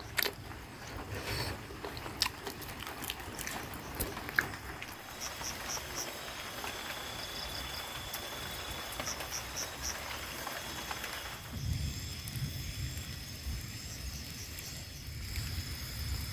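Night insects chirping in the dark: short high chirps in quick groups of three or four, repeating every few seconds over a thin steady high drone. A few scattered clicks and knocks come in the first few seconds, and a low rumble sets in about two-thirds of the way through.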